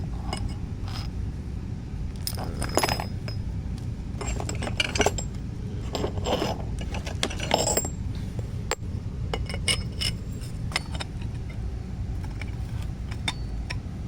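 Metal parts of a multi-tool axe and shovel kit clinking, tapping and scraping against each other as they are handled, with scattered sharp clinks, a few ringing briefly, over a steady low rumble.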